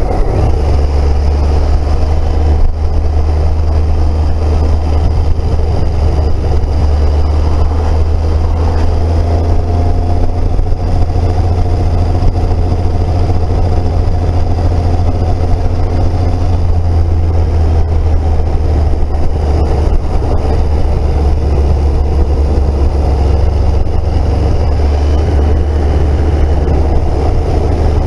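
Triumph Speed Triple's three-cylinder engine running steadily while the motorcycle is ridden at road speed, largely covered by a loud, steady rush of wind on the onboard camera microphone.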